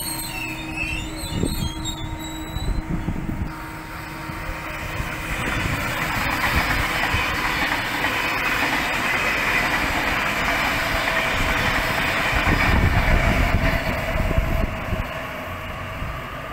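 Sydney double-deck electric trains at a station. A departing Waratah set gives a faint motor whine, then an older double-deck set passes on the adjacent track with a rising rush of wheel and rail noise and a heavy rumble, loudest about two-thirds of the way in before easing.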